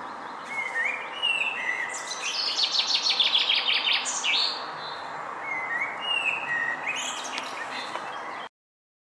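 Woodland birds singing: short whistled phrases and a fast trill of evenly spaced notes ending in a flourish, over a steady outdoor hiss. The sound cuts off abruptly shortly before the end.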